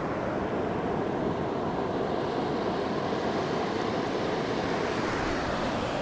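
Small surf waves washing in over a shallow sandy beach: a steady hiss of water and foam, swelling near the end as a wave runs up the sand.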